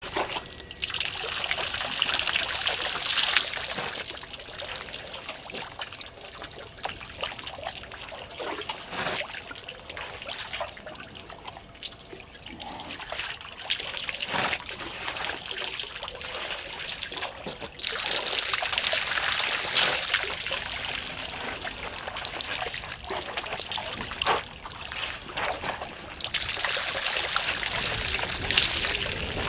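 African elephant drinking at a waterhole: water trickling and splashing from its trunk as it dips it and lifts it to its mouth, in spells of a few seconds each.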